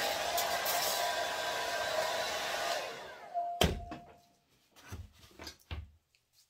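Hand-held hair dryer blowing steadily, a constant tone over the rush of air, then switched off about three seconds in and running down. A sharp click follows, then a few soft knocks of handling.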